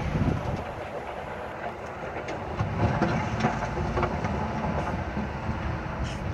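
Excavator at work: its diesel engine runs with a steady low rumble, overlaid by irregular metallic clanks and knocks.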